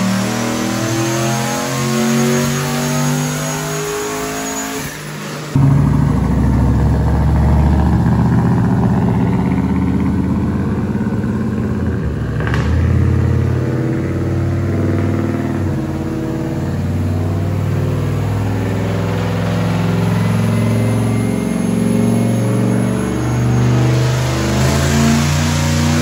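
Turbocharged LS V8 pickup running under load on a chassis dyno, its engine note holding and then stepping to new pitches while it is tuned, with a faint rising turbo whine. The sound jumps louder about five seconds in.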